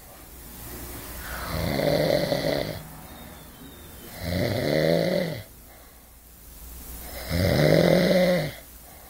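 Loud snoring: three long snores about three seconds apart, each rising and then falling in pitch.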